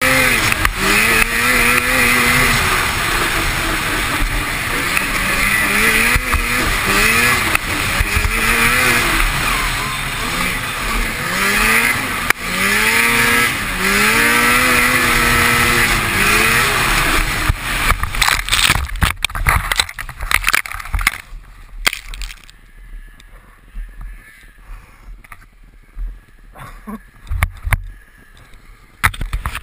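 Lynx snowmobile engine running at speed, its pitch rising and falling with the throttle, over loud wind and track noise. About 18 seconds in the snowmobile crashes: a jumble of knocks and thumps as the engine noise falls away, then scattered knocks at a much lower level.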